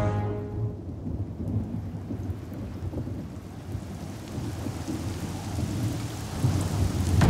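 Thunderstorm: rain falling with low rolling thunder, the rumble building toward the end. A music score fades out in the first second.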